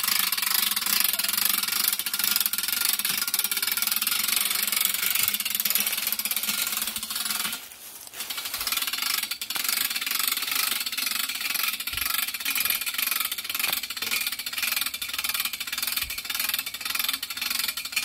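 A rope hoist raising a field-dressed deer carcass on a gambrel, making a steady mechanical hissing noise that breaks off briefly about eight seconds in.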